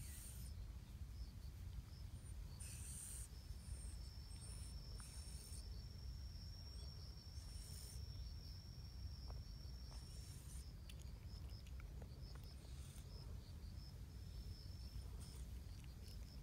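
Insects chirping: short high chirps repeating a few times a second, with a steady high buzz held from about three seconds in to about ten seconds in. Under them is a steady low rumble, with a few brief hissy rustles.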